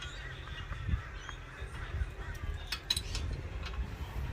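A few sharp metallic clinks of a wrench and socket on the brake caliper bracket bolts, a few in quick succession past the middle, with birds chirping in the background.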